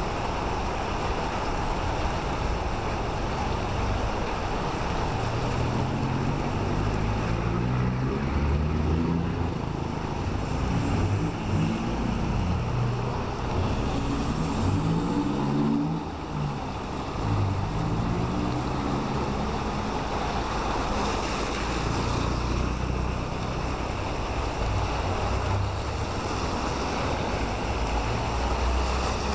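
Heavy rain falling with cars driving past on a wet road. In the middle, a vehicle engine's pitch rises and falls several times as it pulls away and accelerates.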